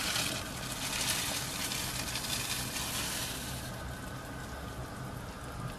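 Rolled oats poured from a bowl into a pan of simmering chicken broth, a hissing patter for about the first three and a half seconds, then the broth simmering quietly.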